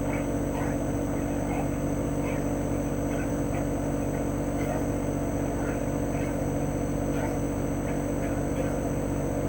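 Chofu AE-2844PX mini-split outdoor unit running in cooling: its GMCC single-rotary inverter compressor hums steadily under the rush of the propeller fan, with a thin, steady high-pitched whine on top.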